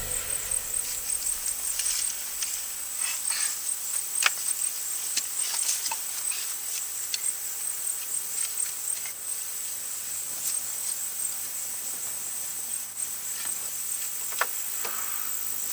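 Insects chirping steadily outdoors: a high, rhythmic pulse about four times a second that fades somewhat later on, with scattered light clicks and taps.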